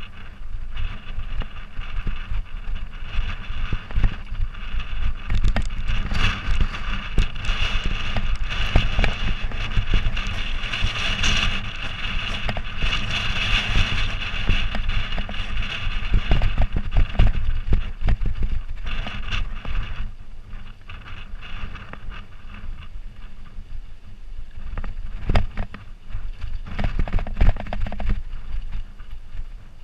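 Mountain bike rolling downhill over a rough, stony gravel track: tyres crunching and the bike rattling and knocking over rocks, over a constant low rumble. The ride gets louder and hissier through the middle stretch.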